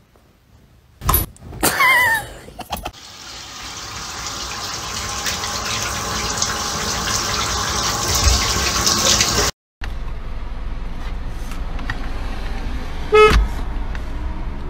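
A couple of sudden knocks and a short wavering animal cry, then running water rushing steadily behind a glass shower door for several seconds before it cuts off. Then a car cabin's steady low hum, with one short car-horn beep near the end.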